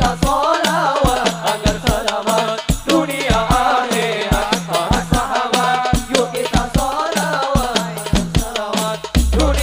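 Sholawat devotional song: male voices singing into microphones over frame drums and a low drum keeping a steady, fast beat.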